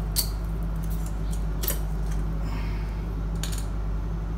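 Metallic clicks and clinks from a motorcycle headlight's chrome rim and glass lens-and-reflector unit being handled and separated: a few sharp clicks, the loudest just after the start. A steady low hum runs underneath.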